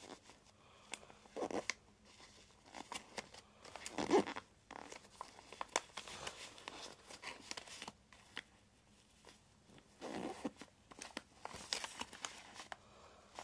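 Origami paper rustling and crinkling as it is folded and creased by hand, with scattered soft crackles and a few louder rustles, the loudest about four seconds in.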